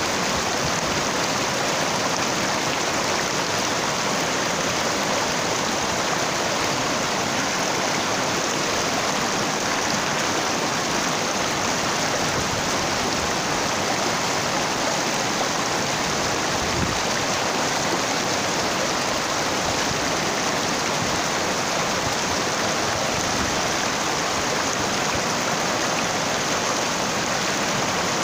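Mountain stream running over a rocky bed: a steady, even rush of water.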